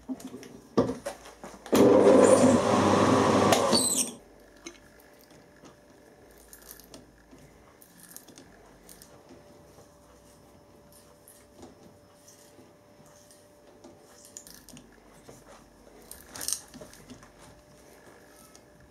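A loud noisy burst lasting about two seconds near the start, then quiet scattered metallic clicks and clinks of tool handling as the drill bit is taken out of the milling machine's chuck.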